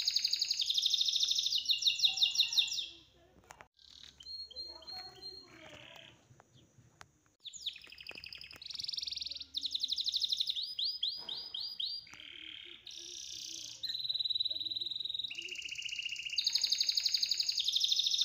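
Songbird singing: rapid, high-pitched chirps and trills in repeated phrases. There is a quieter gap about three seconds in, and the same trilled phrase returns near the end.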